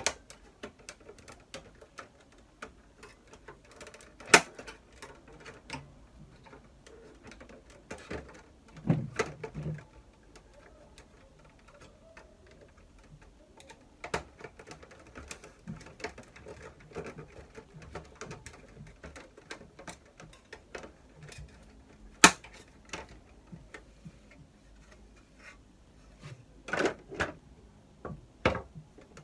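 Irregular plastic clicks, snaps and knocks from a Samsung ML-1660 laser printer's plastic side cover as it is worked loose from its clips. There are sharp loud snaps about four seconds in and about twenty-two seconds in, and short bursts of rattling around nine and twenty-seven seconds.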